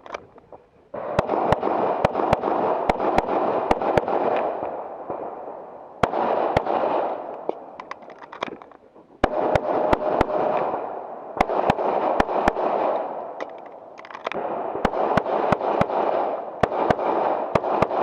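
A handgun fired in rapid strings of shots, about four strings with short pauses between them, as a shooter runs a USPSA course of fire. A loud rushing noise swells under each string and fades in the pauses.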